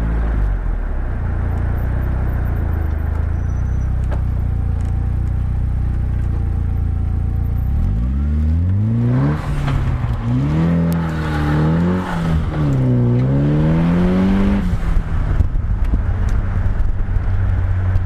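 Westfield SEiW kit car's engine idling, then revved up and down three times before dropping back to a steady idle.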